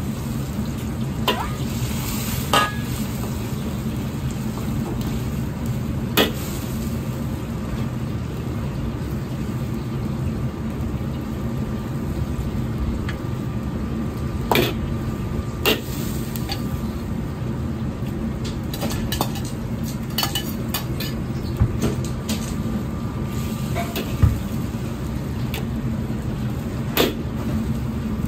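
Steel ladle stirring a simmering sauce in a carbon-steel wok, with a dozen or so sharp clinks of the ladle against the wok scattered through, over a steady low rumble and the bubbling of the sauce.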